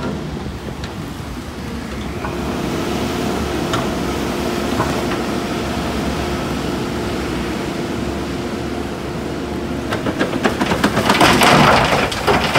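Traffic and heavy construction vehicles on a wet city street: a steady engine drone under tyre noise, then about two seconds of louder rapid knocking and rattling near the end.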